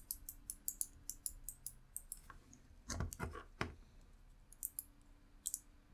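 Push buttons of a homemade Arduino mouse clicking one after another as each is pressed and released in a button test, with a few duller knocks about halfway through.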